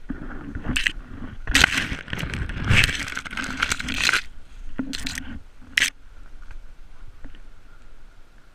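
Leaves and branches scraping and crunching right against the microphone: a dense run of rustling from about one and a half to four seconds in, with a few sharp cracks around it.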